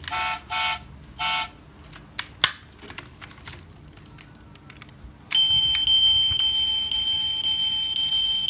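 Electronic sound chip of a die-cast toy Hummer playing through its tiny speaker: three short beeps at the start, a few clicks of the small metal door, then about five seconds in a loud buzzing electronic effect with a steady high tone begins, set off by opening the door.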